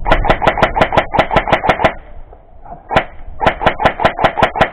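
Airsoft gun firing rapid shots, about eight a second: a burst of about two seconds, a pause with one single shot, then a second, shorter burst near the end.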